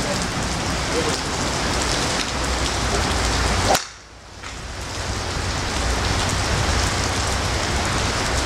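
Steady rain, with one sharp crack about four seconds in as a golf driver strikes the ball off the tee. Right after the strike the rain noise dips briefly and comes back.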